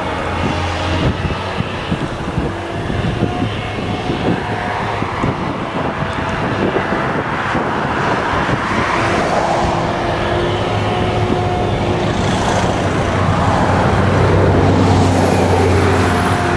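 Claas Jaguar 970 self-propelled forage harvester running at work, chopping whole-crop cereal silage, with a tractor pulling the trailer alongside: a steady, loud machine drone that grows a little louder near the end.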